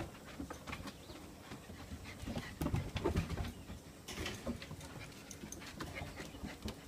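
Claws of a black German Shepherd and its puppy clicking and scrabbling on wooden deck boards as they play, in irregular runs of ticks, loudest about three seconds in.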